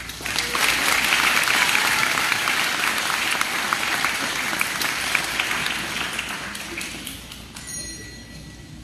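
Audience applause after a children's choir song ends, starting at once, loudest over the first few seconds and fading out about seven seconds in.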